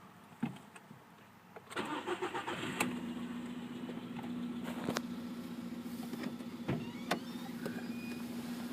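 VW Polo sedan petrol engine cold-started: the starter cranks for about a second, the engine catches and settles into a steady idle with sharp intermittent ticks. This is the knock the owner reports since the pistons were replaced.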